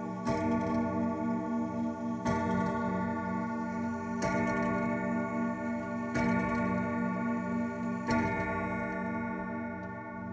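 Howard Miller grandfather clock striking the hour on its chime rods: five hammer strokes about two seconds apart, each ringing on into the next. The fifth is the last stroke of the hour; its ringing fades and the clock's ticking comes through near the end.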